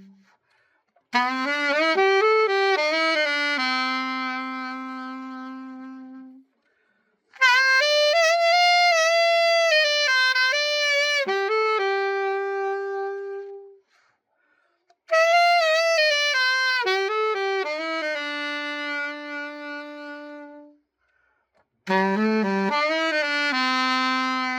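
Cannonball Stone Series A-5 alto saxophone played solo, as a play test after a full overhaul: four short melodic phrases of held and moving notes, each separated by a pause of a second or so.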